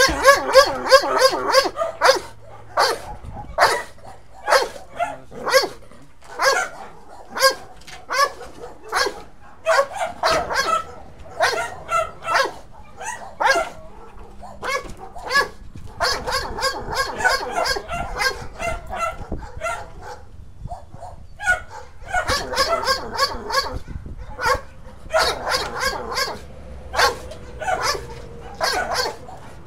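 A dog barking and yipping at cats in quick, repeated runs, with a short pause about twenty seconds in.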